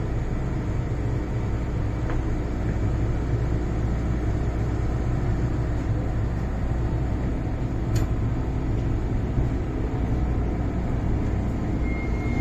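MTR Island Line M-Train running, heard from inside the car: a steady rumble of traction motors and wheels on the rails, with one sharp click about eight seconds in. The uploader hears the motor noise in this car as unusually doubled.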